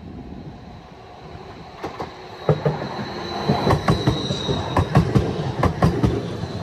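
Stadler Tango electric light-rail tram-train approaching and passing close by, growing louder as it comes. From about two and a half seconds in, its wheels clack sharply over the rail joints, under a thin steady high-pitched whine.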